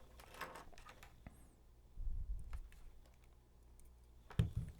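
Scattered light clicks and taps of small objects and controls being handled on a workbench, with a dull knock about two seconds in and a louder thump near the end.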